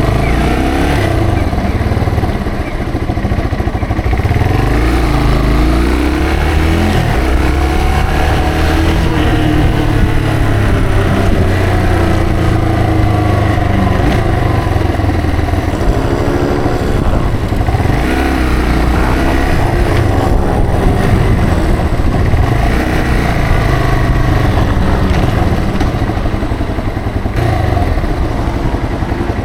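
Yamaha TW225's single-cylinder four-stroke engine running under way, its pitch rising and falling over and over as it accelerates and changes speed, over a steady low wind rumble.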